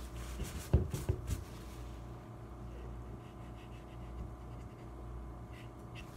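Light handling sounds: a quick cluster of taps and knocks about a second in, then faint scratching and rubbing as a swab and cloth are worked over an AR-15 receiver. A steady low hum runs underneath.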